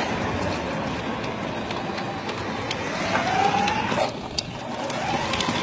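Steady city street traffic noise, with a rising whine about three seconds in and a few light ticks just after.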